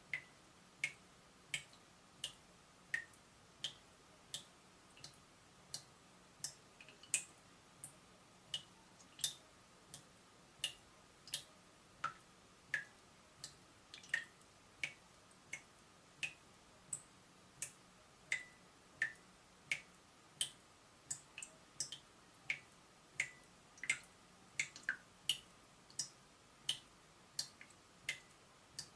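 Water dripping from a leaking tap, one drop at a time: short bright plinks at a steady rate of about three every two seconds, each at a slightly different pitch.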